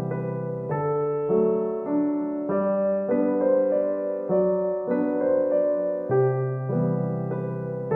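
Background music: a gentle piano tune with a bass line, chords changing about every half second to second.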